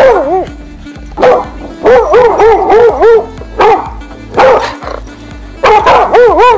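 A dog yipping and barking, a dozen or so short, high yelps, each rising and falling in pitch and coming in quick runs, over background music.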